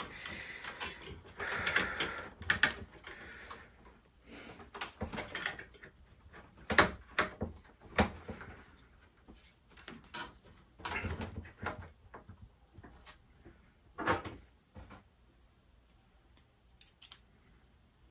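Scattered clicks, knocks and light metal rattles from a disc brake caliper and its bolts being handled and fitted onto a scooter's rear brake adapter, with short bouts of rustling between them.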